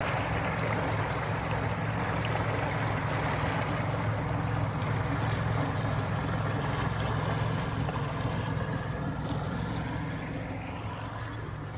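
Motorboat running steadily underway, a low engine drone under the rush of water and wind, growing a little quieter near the end.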